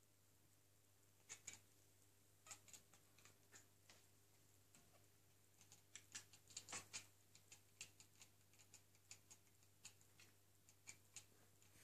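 Domestic cats chattering at light reflections they are watching: quick, dry, irregular clicks from the mouth, like a Geiger counter. The clicks come in uneven clusters and are thickest about halfway through. The chatter is the excited hunting response to prey the cats can see but not reach.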